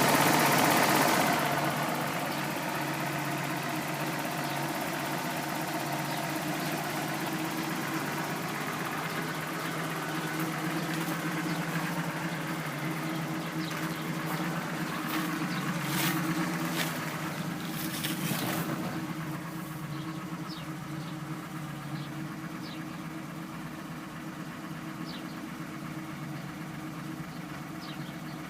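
BMW E30 325i's 2.5-litre straight-six engine running, louder for the first second and a half and then settling into a steady idle. Scattered sharp clicks come through in the middle stretch. This is the car the owner presents as making an abnormal noise.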